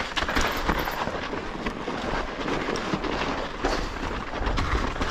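Mountain bike rolling down a snowy trail: the tyres run steadily over snow while the bike rattles, with many small knocks throughout.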